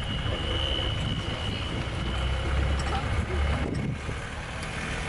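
Engine of a game-drive vehicle running steadily with a low rumble.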